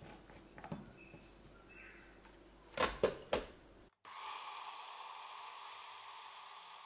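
A few plastic knocks as the filled cup is fitted onto a personal bullet-style blender's motor base. About four seconds in, the blender's motor starts and runs steadily, blending soaked almonds, dates and water into almond milk.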